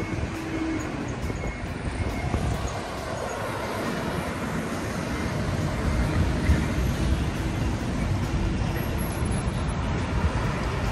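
Steady city road traffic: cars and trucks running past, a continuous low rumble.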